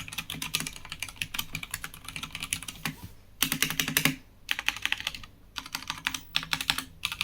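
Fast typing on a Krux Atax Pro Retro mechanical keyboard with factory-lubed linear Gateron Yellow Pro switches: rapid keystrokes in runs, broken by short pauses about three and five seconds in.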